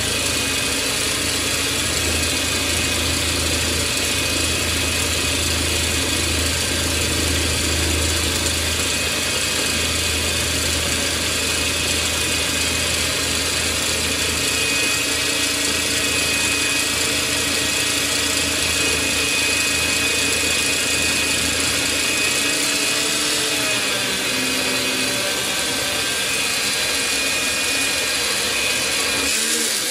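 Parkside portable metal band saw running steadily as its blade cuts down through a rusty steel bar. A low vibrating rumble under the cutting sound eases about two-thirds of the way through, as the blade nears the far side of the bar.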